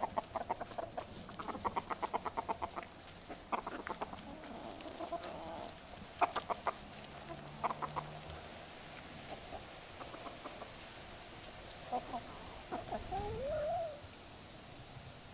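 Hens and a rooster clucking around the feet, in quick runs of clucks that thin out after about eight seconds. A short rising call comes near the end.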